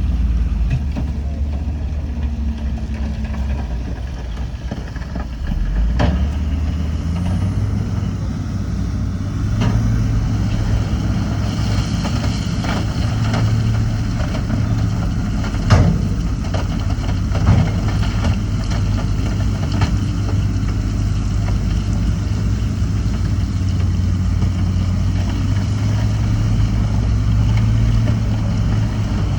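Heavy diesel engine of earthmoving equipment running steadily. Its pitch steps up about six and eight seconds in. A few sharp knocks stand out, the loudest about halfway through.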